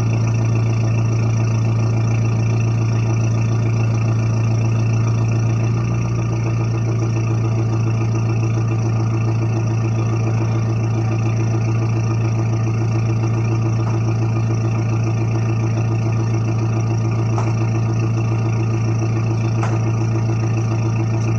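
Weststar Maxus V80's 2.5-litre turbo-intercooled four-cylinder diesel idling steadily, with no revving. The level eases slightly about six seconds in.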